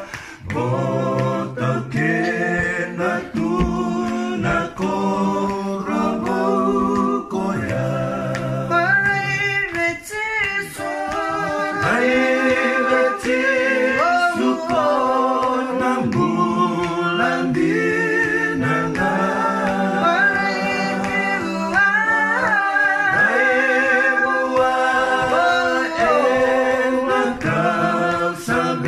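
Music: several voices singing together in harmony without instruments, a cappella, with long held, wavering notes.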